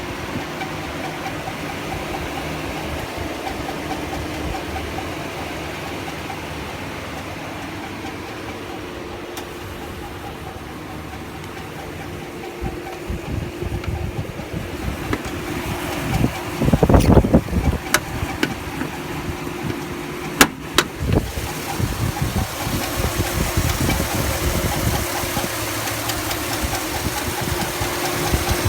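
2005 Chevrolet Silverado's 5.3-litre V8 running at idle with a steady squeal, which two mechanics took for a bad main bearing and others suggest could be a lifter or cam. A few sharp clicks and thumps stand out about halfway through.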